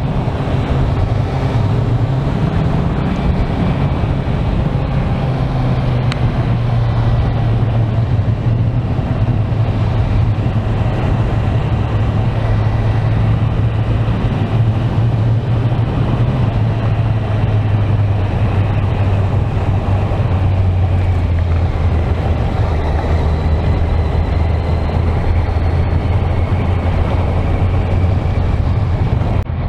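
Kawasaki Z900's inline-four engine running steadily under way, with wind and road noise. Its hum sinks slightly lower in pitch past the middle as the bike eases off.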